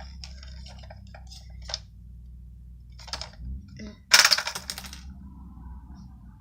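A pencil case being handled and opened: scattered small clicks and knocks, then a louder clatter about four seconds in.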